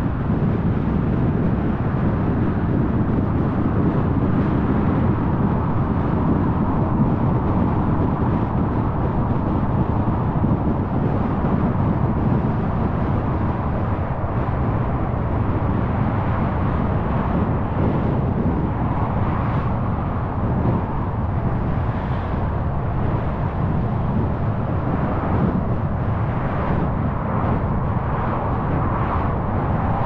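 A car's tyre and engine noise while driving at road speed: a steady low rumble with a fainter hiss above it, which grows slightly brighter in the second half.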